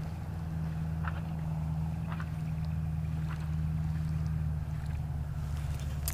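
Steady low drone of a motorboat engine running out on the water, growing slightly louder, with faint ticks about once a second and a few sharp clicks near the end.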